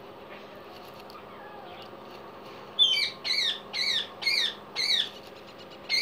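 Indian ringneck parakeet giving a run of harsh squawks, about two a second, starting roughly three seconds in after a quiet stretch of low steady background.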